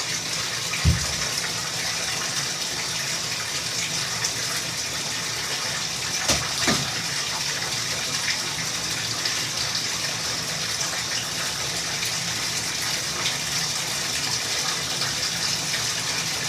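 Bath tap running, water gushing steadily into a filling bathtub. A sharp knock about a second in and two lighter knocks around six seconds in.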